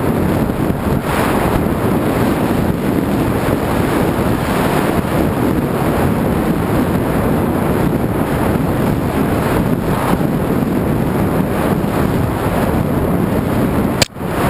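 Loud, steady wind rushing over the microphone of a board-mounted camera as a snowboard rides fast through powder snow. Near the end the sound drops out briefly with a sharp click.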